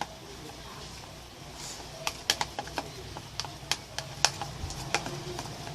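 Slime being worked in a plastic container: a run of irregular sharp clicks and small pops starting about two seconds in.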